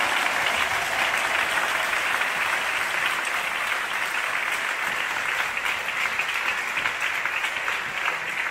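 Football stadium crowd applauding, a dense, steady clapping.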